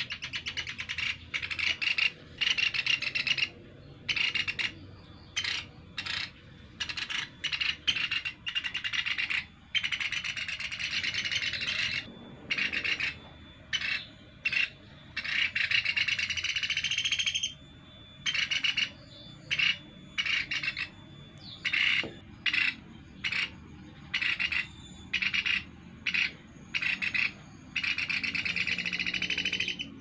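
Young Sunda pygmy woodpeckers (pelatuk beras) calling: raspy, buzzy chattering in repeated bursts of uneven length with short pauses between them, the longest lasting a few seconds around the middle.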